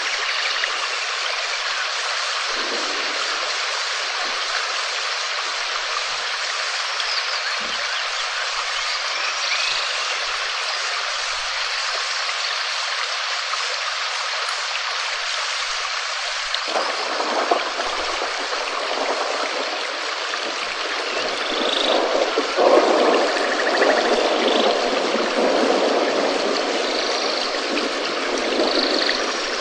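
Steady rain falling with an even hiss. Partway through it deepens and grows heavier, loudest in the last few seconds.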